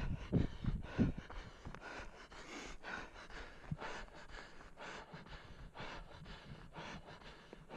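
A runner's heavy, rhythmic breathing, with footsteps on dry dirt. The footfalls are strong for the first second or so, then lighter.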